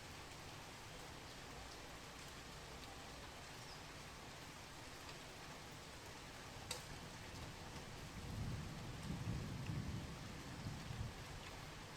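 Steady rain falling, with one sharp drip tick a little past halfway. Then a low roll of thunder rumbles for about three seconds before fading back under the rain.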